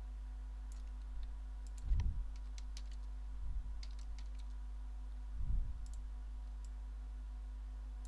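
Scattered light clicks from a computer mouse and keyboard, most of them in the first half, with a few soft low thuds, over a steady low electrical hum.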